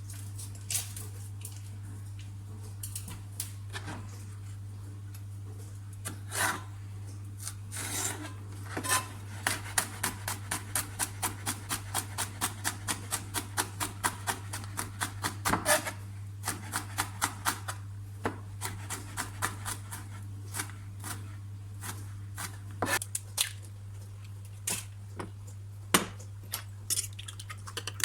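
A kitchen knife chopping on a cutting board: sharp knocks, scattered at first, then a quick even run of about four strokes a second for several seconds, then slower and irregular again. A steady low hum runs underneath.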